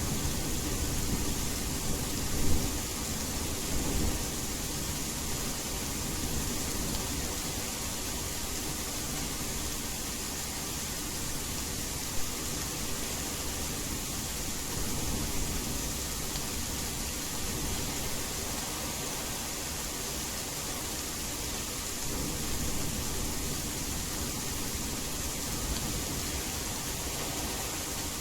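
Steady rain falling, with a rumble of thunder in the first few seconds, loudest about two and a half seconds in.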